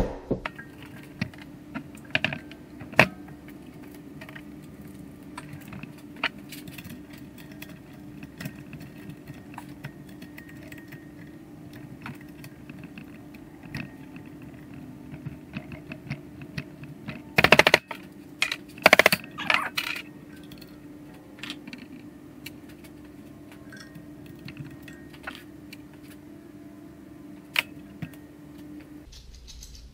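Metal clinking and clicking as a valve spring compressor is fitted and worked on a GM 181 cast-iron cylinder head to free a valve spring, with a cluster of louder metal clanks a little past halfway. A steady low hum runs underneath and stops just before the end.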